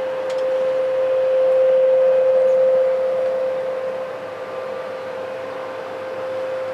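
A steady, single-pitched droning hum over hiss, like a distant horn or machine, of the kind reported as unexplained 'strange sounds'. It swells a little about two seconds in, then eases.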